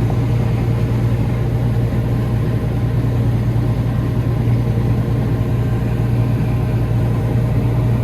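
Farm machine's engine running steadily, heard from inside the cab as a loud unbroken drone with a strong low hum, while corn is being unloaded on the go into a grain cart.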